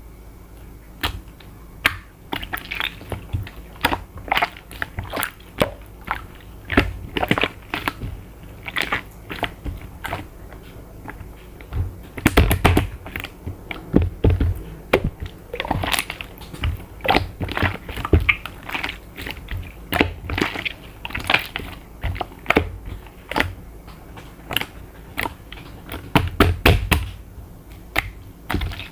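Glittery slime being squished and pressed by hand, making irregular sticky clicks and crackling pops.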